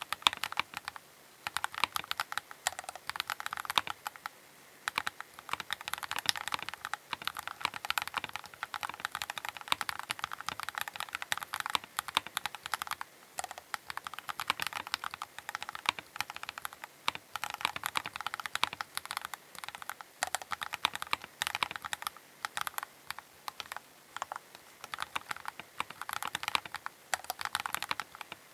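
Keychron K8 Pro mechanical keyboard being typed on continuously, a fast, uneven run of keystrokes with a couple of short pauses.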